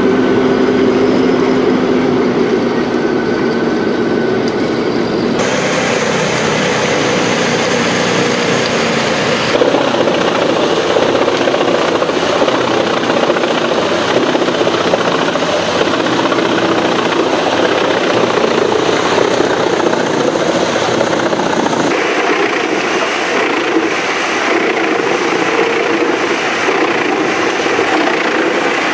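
A tractor-driven mobile wood chipper running loud and continuously: at first a large engine's steady drone, then the chipper shredding logs into wood chips with a dense grinding noise. The sound changes abruptly a few times.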